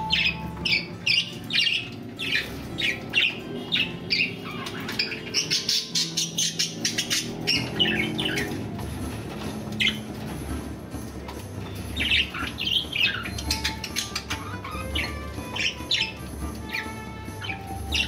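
Pet budgerigars chirping and chattering in a cage: a busy run of short high calls, several a second, thinning out briefly near the middle.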